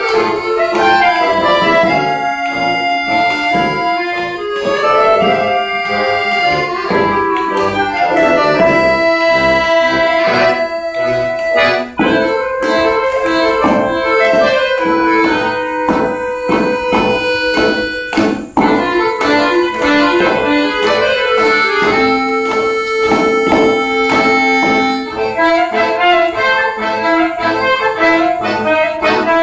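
A klezmer tune played live by a youth wind ensemble with accordion, clarinet and guitars, the accordion prominent over a steady rhythmic chord accompaniment. The music breaks off for a moment twice, near the middle.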